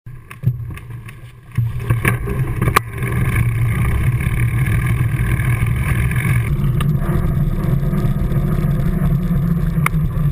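A few sharp knocks from the small camera being handled, then a steady low rumble as it moves along the ground.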